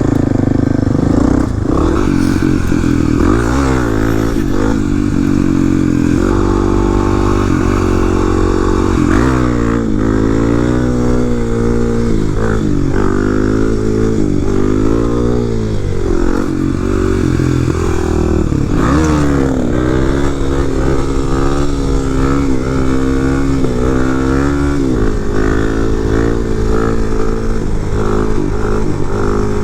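Dual-sport dirt bike's single-cylinder four-stroke engine under way, revving up and easing off again and again as it is ridden, its pitch climbing and dropping through the gears. It runs at a steadier pitch in the last several seconds.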